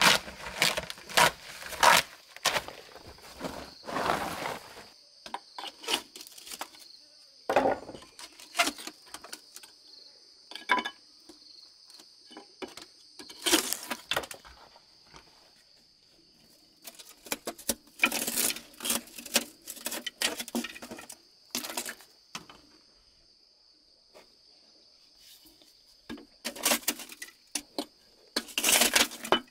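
A steady, high-pitched insect chorus, broken by clusters of scraping and short knocks from hand work on the brick oven's bricks and mortar, with quieter stretches between the clusters.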